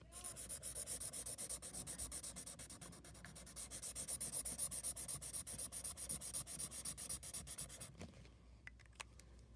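Marker scribbling rapidly back and forth on paper, shading in a filled area, at about six or seven strokes a second. It pauses briefly about three seconds in and stops about eight seconds in.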